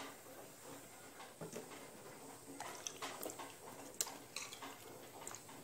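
Faint kitchen handling: banana stem slices put into a steel bowl of buttermilk water and swished around by hand, with soft liquid sounds and a few light clicks.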